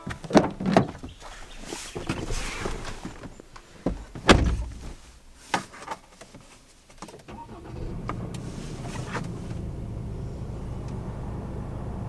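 Ford Ranger Raptor's driver door unlatching and opening with sharp clicks, then a heavy thump of the door shutting about four seconds in. A few seconds later the engine starts and settles into a steady low idle.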